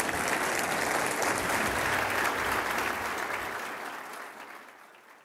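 Audience applauding steadily, then fading away over the last two seconds.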